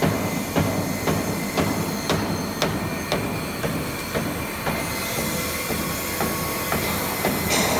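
CNC foam cutting machine running, with a sharp mechanical clack about twice a second over a steady machine noise; the clacks fade out after about five seconds.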